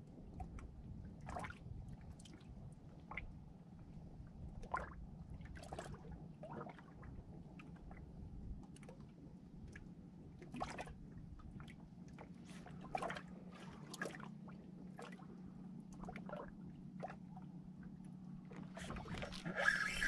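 Water lapping and gurgling faintly, with scattered light clicks and taps at irregular moments over a steady low hum.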